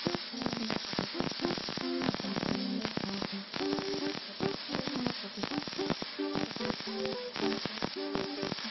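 MIG welding arc crackling and sputtering steadily as a bead is run on a steel tank, with a melody of background music playing over it.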